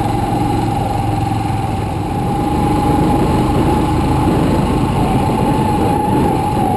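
Motorcycle engine running steadily on the move, with a constant mid-pitched whine over a low rumble of wind and road noise.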